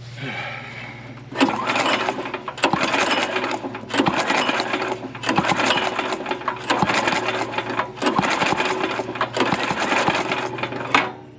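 Predator small engine's recoil starter pulled again and again, about eight quick pulls, spinning the engine over with the spark plug out to clear water from the cylinder.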